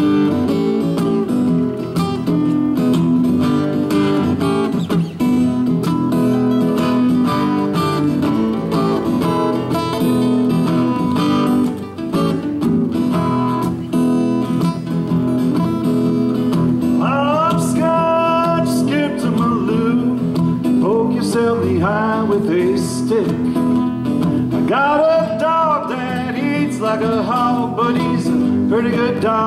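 Several acoustic guitars strumming a folk-country song together; a voice comes in singing about halfway through.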